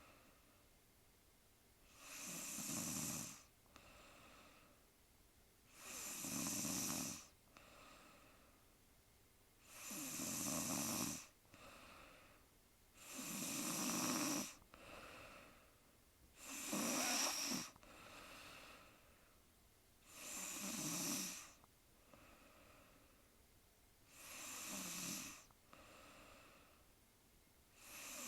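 A sleeping woman snoring in a steady rhythm, one snore about every four seconds, each lasting a second or so, with a fainter breath between snores.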